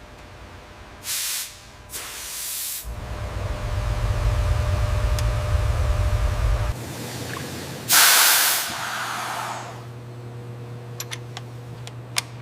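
Start-up of an M48 Patton tank's Continental V12 engine: two short hisses, then a deep rumble as the engine fires and runs up. A loud burst of hiss follows about eight seconds in, and the engine settles into a steady, lower idle hum, with a few sharp clicks near the end.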